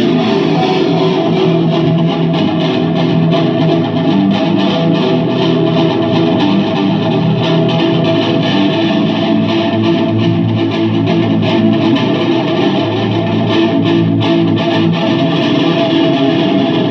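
Guitar playing continuously, with many sustained notes layered over one another and no breaks.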